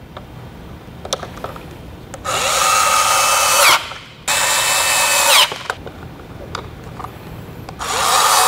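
WORX cordless electric screwdriver whirring in three short runs of a second or two each, driving screws into a plastic bracket. A few faint clicks of handling come between the runs.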